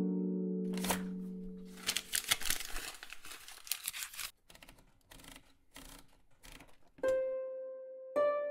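A fading plucked harp-like chord gives way, about two seconds in, to a burst of rattling paper noise as a sheet is pulled out of a Remington Quiet-Riser manual typewriter. Scattered soft clicks of the typewriter's mechanism follow, and plucked music notes come back near the end.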